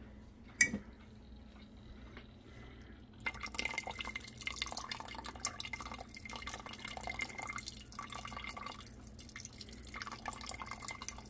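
A sharp click as the soy sauce bottle's cap is opened, then, from about three seconds in, soy sauce poured in a thin stream into broth in a stainless pressure-cooker pot, dripping and splashing in uneven spells.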